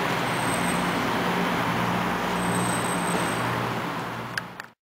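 Steady outdoor traffic noise with a low, even engine hum, fading out near the end with two short clicks.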